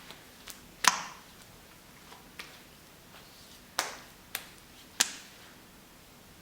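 A series of sharp taps or clicks at irregular intervals, about eight in all, the loudest about a second in and again near four and five seconds, each dying away quickly.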